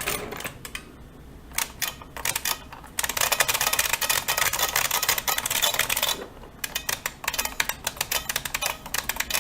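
IBM Model F AT keyboard being typed on, its buckling-spring keys clacking sharply: a few separate keystrokes at first, then fast continuous typing from about three seconds in, a brief pause a little after the middle, then typing again.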